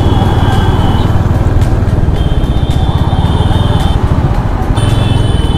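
Royal Enfield Hunter 350's single-cylinder engine running steadily at highway riding speed, its low, even firing pulses under a constant rush of wind noise.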